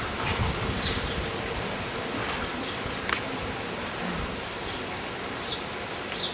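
Outdoor ambience: a steady hiss, with a few short high chirps about a second in and near the end, and a single sharp click about halfway through.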